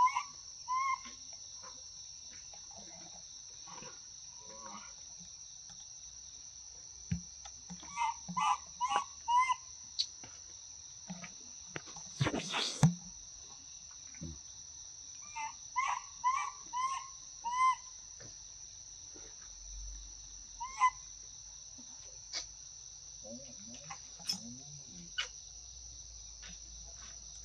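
Steady high-pitched drone of insects, with short pitched animal calls that come in runs of four or five, twice, plus a few single calls. A sharp knock stands out about halfway through.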